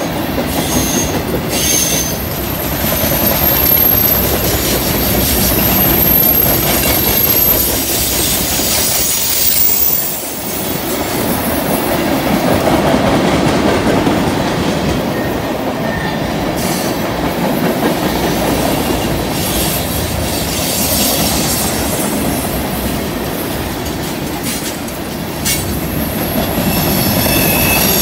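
Freight cars rolling past on a curve: a steady rumble and rattle of steel wheels on the rails, with thin high-pitched wheel flange squeal near the start and again near the end.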